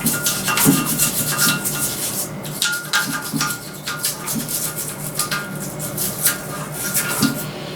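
Repeated scrubbing strokes on a Honda CB400 VTEC cylinder head as it is cleaned of oil, grease and dirt, a few rubbing strokes each second in an uneven rhythm.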